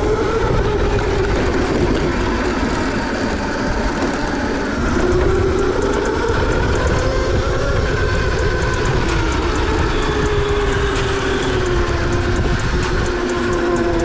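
Electric dirt bike's motor whining as it is ridden, the pitch rising and falling with speed, over a steady rumble of wind and the ride.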